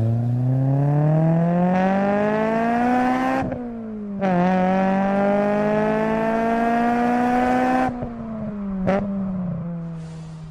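Car engine sound effect revving up through the gears. The pitch climbs steadily for about three and a half seconds, breaks briefly at a gear change, then climbs again more slowly. After that it drops to a lower tone that fades out near the end.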